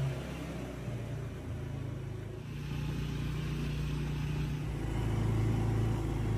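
Quad bike (ATV) engine running steadily under way, its note shifting a couple of times.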